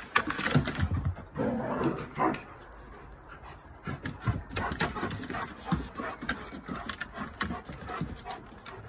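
German shepherds play-fighting, vocalising in loud bursts for the first two seconds or so, then many short knocks and scuffs of paws and claws on wooden decking.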